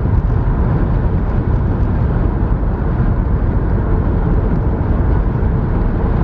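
Steady road and engine noise of a car driving at highway speed, heard inside the cabin as a constant low rumble.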